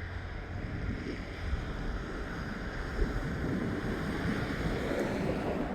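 Wind blowing across the microphone: a steady rushing noise with a low rumble.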